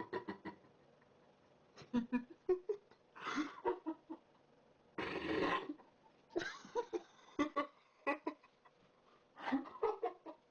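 A person burping repeatedly: about six short burps spread through the stretch, with clicks in between; the loudest burp comes about halfway through.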